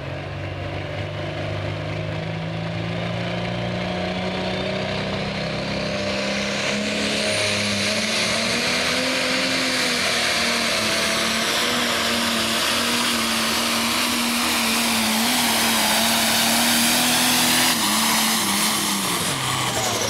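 Light Pro pulling tractor's engine at full power dragging the weight sled down the track, its pitch climbing over the first several seconds and then holding high. Near the end the pitch drops as the throttle comes off.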